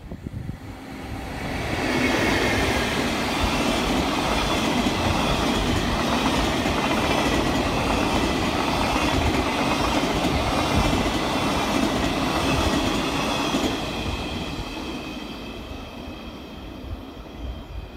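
Freight work train of empty Chiki flatcars running through a station at speed: steel wheels rolling and clattering on the rails, with a steady high ringing over the rumble. It swells about two seconds in, holds, then fades over the last few seconds as the train moves away.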